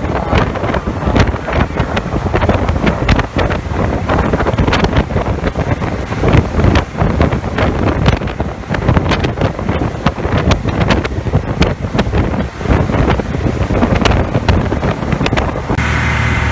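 Motorboat under way at speed, with heavy wind buffeting the microphone. Near the end the buffeting stops abruptly, leaving a steadier low engine hum.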